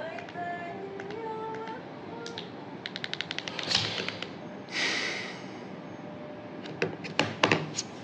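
Clicks and taps of hands handling a phone close to its microphone: a quick run of about ten clicks about three seconds in, a short hiss about a second later, and a few louder taps near the end.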